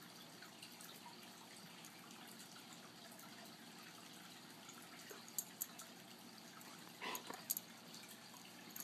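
Quiet room tone with a few faint, brief clicks and one soft short sound about seven seconds in.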